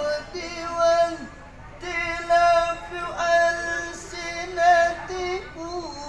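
A man's voice chanting Qur'an recitation in a melodic, drawn-out style, holding long notes and ornamenting them with turns in pitch, with a short breath pause about a second in.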